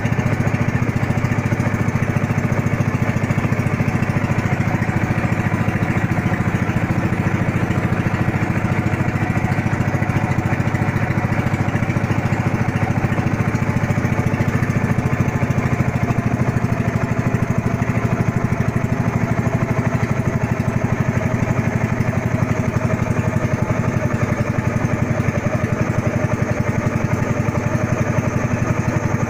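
Small engine of a motorized bangka (outrigger boat) running steadily under way, heard from on board.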